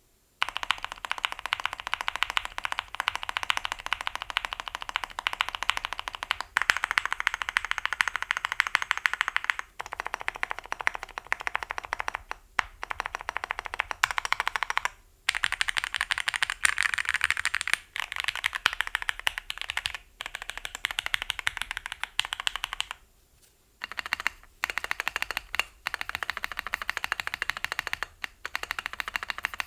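Typing on a Thera75 plateless custom mechanical keyboard with lubed and filmed JWK Seal switches and PE foam: a fast, dense run of keystrokes, broken by several short pauses, starting about half a second in.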